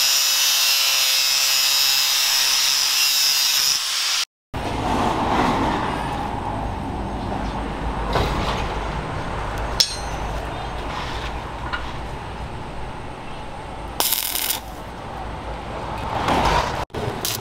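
Electric angle grinder with a sanding disc running under load against the steel guard of a hand-forged Bowie knife: a loud, steady whine with a grinding hiss. It cuts off suddenly about four seconds in, leaving a much quieter background with a few light knocks and clicks.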